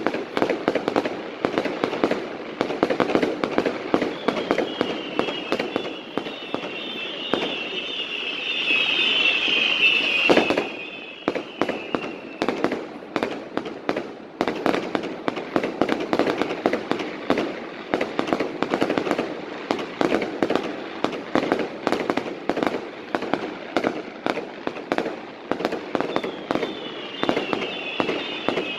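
Fireworks going off in a continuous rapid barrage of bangs and crackles. A chorus of high, shrill whistles rises over it from about four seconds in until about twelve seconds, and starts again near the end. One especially heavy bang comes about ten seconds in.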